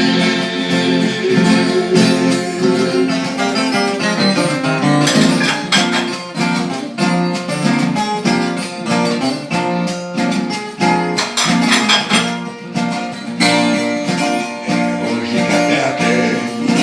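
Instrumental break of a Brazilian moda de viola: a viola caipira plucking a busy melody over a steady strummed acoustic guitar accompaniment, with no singing.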